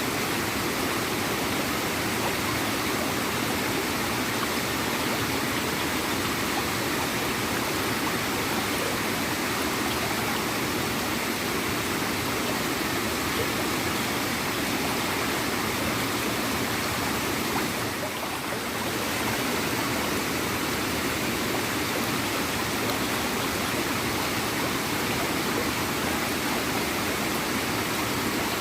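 Small waterfall pouring into a stream: a steady rush of falling, gurgling water, with a brief dip in level about two-thirds of the way through.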